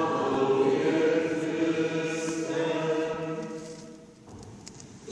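Sung chant with long held notes, fading out about four seconds in.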